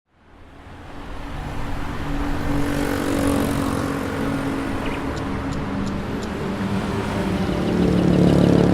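A motor vehicle's engine running steadily, fading in from silence over the first second or two.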